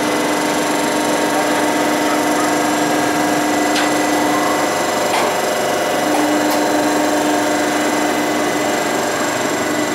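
Fairground wheel ride's drive machinery running with a steady mechanical hum and whine, and a few light clicks near the middle.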